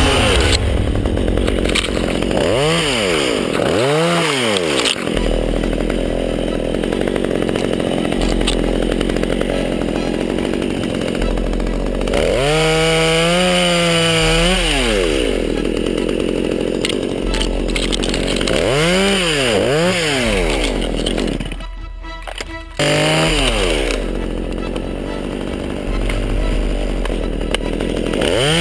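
Stihl two-stroke chainsaw revved up and down again and again, held at high speed for about two seconds near the middle, with background music under it.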